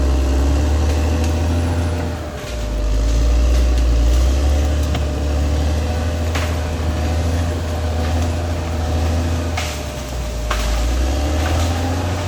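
Caterpillar D6R XL bulldozer's diesel engine running under changing load, a low drone that dips and rises as the machine pushes. A few sharp cracks sound over it in the second half.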